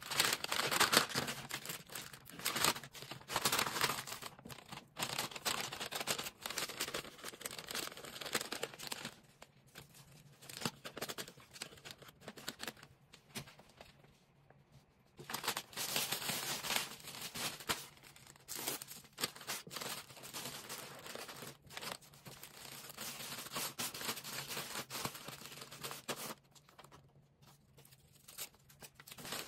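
Packing materials handled by hand: plastic crinkling and rustling, with tearing sounds, in irregular bursts broken by short quieter lulls.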